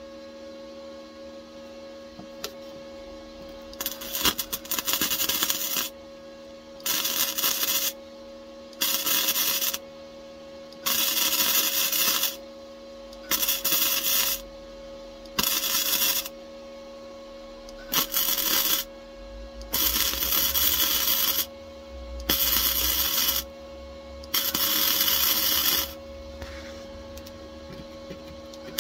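MIG welder arc crackling in about ten short bursts, each a second or two long with brief pauses between: stitch welding on thin car-body steel, over a steady hum.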